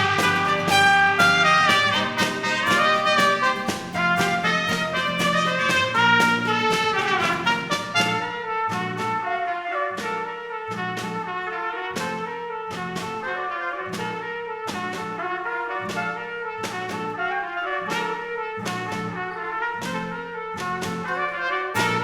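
Small brass ensemble with trumpet and trombone playing a tune, first with full held notes, then from about eight seconds in with short detached notes on a steady beat. The fuller sound comes back near the end.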